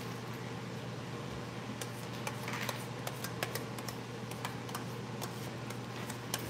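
A steady low hum under scattered light clicks and ticks, which come more often from about two seconds in.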